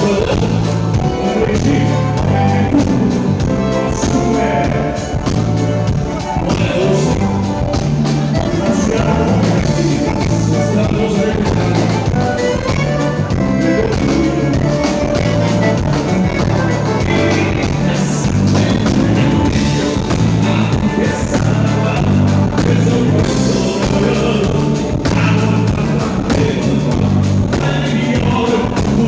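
A band playing music, with a stepping bass line under a regular drum beat.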